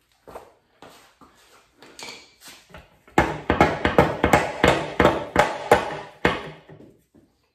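A few light knocks and clatter, then a run of about a dozen sharp blows, roughly three a second, as a hand tool strikes the oil pan of a Subaru WRX engine on an engine stand to work the pan loose.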